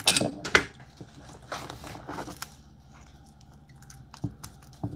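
Cooked blue crab shell cracking and crunching as it is picked apart by hand. There is a cluster of sharp cracks at the start, a few more about two seconds in, then only faint clicks.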